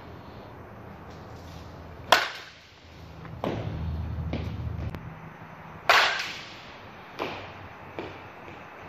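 Softball bat striking a softball off a batting tee: two sharp cracks about four seconds apart, the second the louder, with fainter knocks in between and near the end. A low hum runs for a second or so in the middle.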